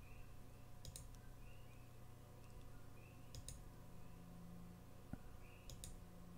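Computer mouse clicking, three short clicks each made of a quick pair, a couple of seconds apart, over a faint steady low hum.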